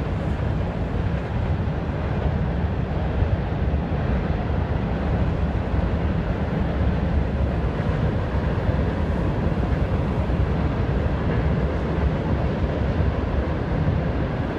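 A very long train rolling past on a viaduct overhead: a steady, unbroken rumble of wheels and cars.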